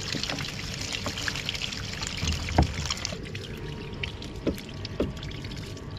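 Water pouring and splashing, with a few knocks. The rushing sound stops about three seconds in.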